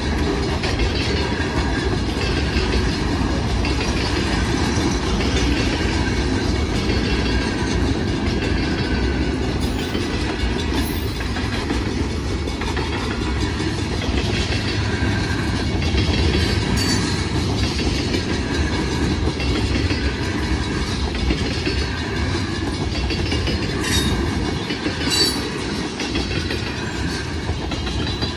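Freight train's open hopper cars and tank cars rolling past at a grade crossing: a steady rumble of steel wheels on the rails.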